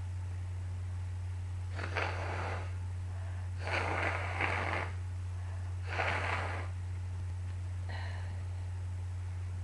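A person with a cold blowing their nose hard three times: about two seconds in, a longer blow around four seconds, and another near six seconds, with a faint fourth near the end. A steady low electrical hum runs underneath.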